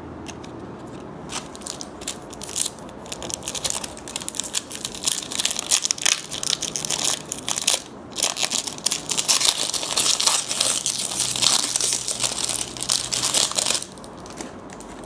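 Plastic trading-card pack wrapper crinkling and tearing as a pack is opened by hand, in irregular bursts of crackle that stop shortly before the end.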